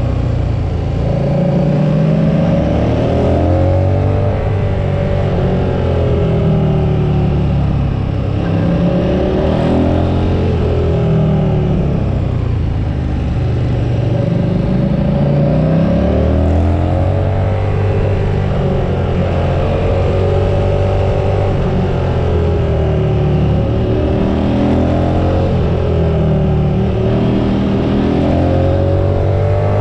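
KTM 1290 Super Duke R's V-twin engine under a rider at speed, revving up and dropping back again and again as it accelerates and rolls off.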